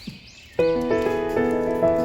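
Background music with sustained, held notes. It drops out briefly at the start and comes back about half a second in.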